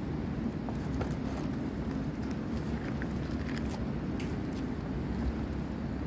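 Steady low background rumble with a few faint clicks and taps.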